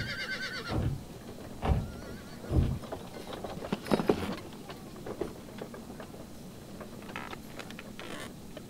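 A horse's whinny tails off in the first second. It is followed by three heavy, low thuds about a second apart, a louder clatter about four seconds in, and small scattered clicks and jingles near the end.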